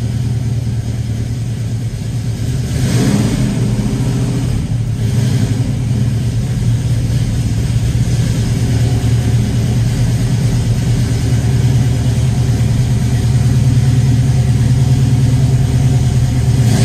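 A 1968 Pontiac GTO's 455 Pontiac big-block V8 running steadily just after a cold start, getting a little louder from about three seconds in.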